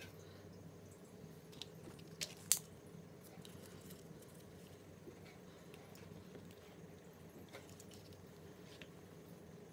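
A few sharp clicks from a spring-loaded desoldering pump (solder sucker) and small parts being handled, the loudest a single snap about two and a half seconds in, over a faint steady hum.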